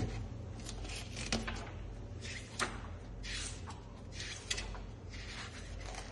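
Large bound sheets of paper rustling and swishing as pages are turned one after another, several swishes over a low steady hum.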